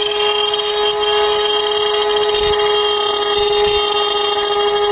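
Handheld rotary tool with a cutting bit running at a steady speed, giving a steady whine as it cuts through the plastic between the grille and the bumper.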